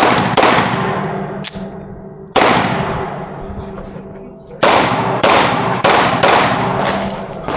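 Pistol shots fired in an IPSC stage run, about eight or nine at an uneven pace: single shots and quick pairs with a gap of about two seconds in the middle. Each shot is loud and echoes away.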